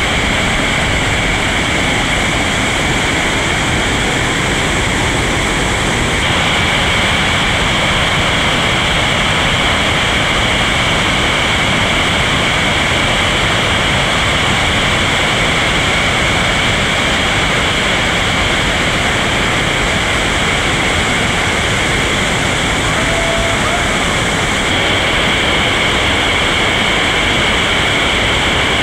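Loud, steady rush of whitewater rapids on a creek running high, an even noise that shifts slightly about six seconds in and again near the end.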